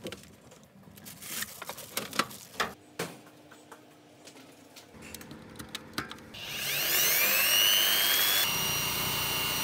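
Clatter and scattered knocks from handling, then about six seconds in a corded electric drill spins up with a rising whine and runs steadily, loud, as it bores a hole through the centre of a metal jar lid.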